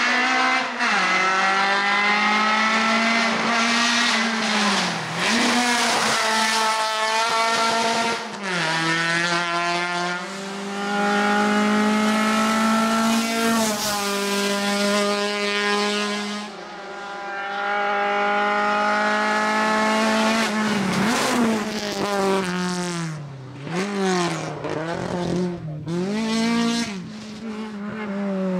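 VW Golf Mk2 hill-climb race car engine revving hard, its pitch climbing through the gears and dropping at each upshift. Later come several quick drops and rises as it brakes and downshifts for bends.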